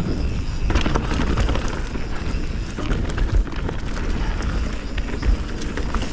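Canyon Spectral 29 mountain bike riding down a dirt trail: steady wind rumble on the chest-mounted camera's microphone with tyre noise over dirt and leaves, and frequent clicks and knocks from the bike rattling over bumps.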